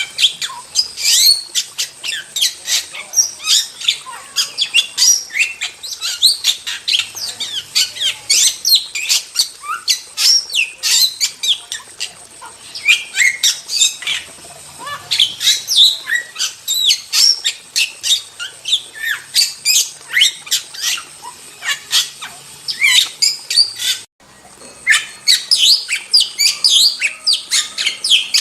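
Starling (jalak) singing vigorously: a dense, rapid chatter of short squawks and whistled notes with no pauses. The sound cuts out abruptly for a moment about 24 seconds in, then the chatter resumes.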